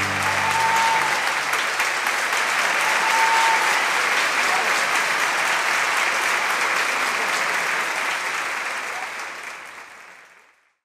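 Audience applauding at the end of a mariachi dance number, a steady dense clapping that fades away near the end.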